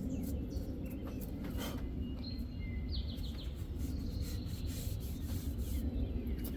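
Birds chirping outdoors, a short whistled call and a quick run of falling chirps two to three seconds in, over a steady low rumble, with a few light clicks.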